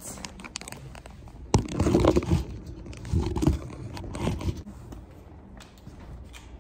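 Close rustling and crinkling handling noise in three spells, about a second and a half, three seconds and four seconds in.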